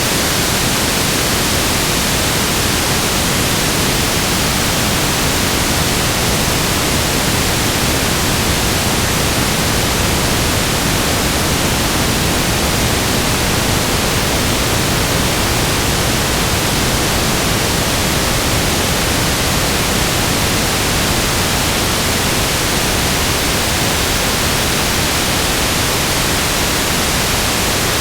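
Loud, steady static hiss, an even noise spread across all pitches with no tones, clicks or changes.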